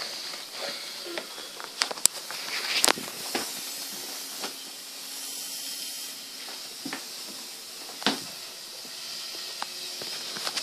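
Steady hiss with scattered irregular clicks and knocks, typical of a handheld phone camera being moved and handled.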